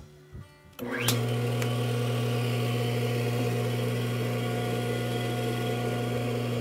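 Electric motor of a 2x72 belt grinder switched on a little under a second in. It spins up with a brief rising whine, then runs steadily with a strong hum, turning the drive wheel.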